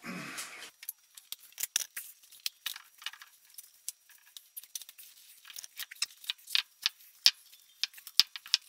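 Handling noise as a lifting strap is fed under a large rock on a concrete floor: a short rustle at the start, then scattered, irregular small clicks and scrapes.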